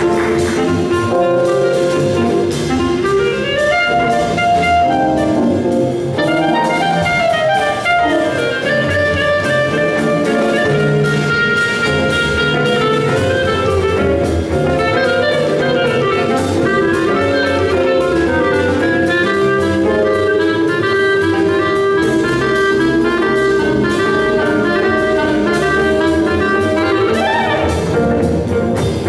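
Live small jazz band in gypsy-jazz style: a clarinet plays the lead melody over acoustic guitar, drum kit, double bass and keyboard.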